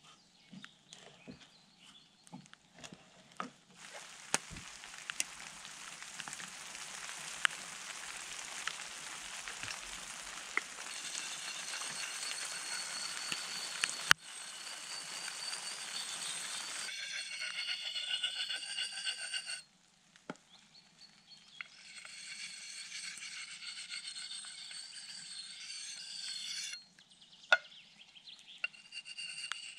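Axe being sharpened by hand: a steady scraping of an abrasive over the steel, which takes on a ringing, squealing tone in the later strokes. There are a few light clicks and knocks at first, a short break about two-thirds of the way through, and a stop near the end.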